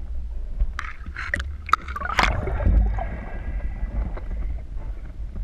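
Water sloshing and splashing around a camera just below the surface: a steady low rumble of moving water, with a few sharp splashes in the first half, the loudest a little past two seconds in.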